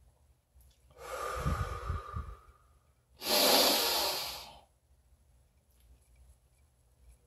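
A man taking one slow deep breath: a long breath in about a second in, then a louder breath out of about a second and a half.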